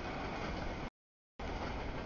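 Freight train of boxcars and empty centerbeam flatcars rolling past, a steady rumble of wheels on rail. The sound cuts off abruptly into dead silence a little before a second in and cuts back in about half a second later.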